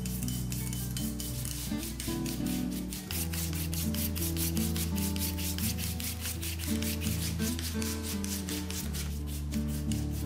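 Raw potato rubbed up and down a flat stainless-steel hand grater, a fast, even run of rasping strokes, several a second, as it is shredded into strips. Soft background music plays underneath.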